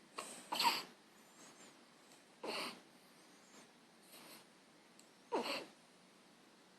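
Newborn baby hiccupping: short, sudden hiccups about every two to three seconds, some with a tiny squeak of voice.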